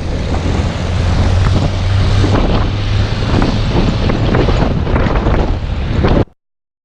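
A motor vehicle running, its low engine rumble mixed with heavy wind buffeting on the microphone. It cuts off abruptly about six seconds in.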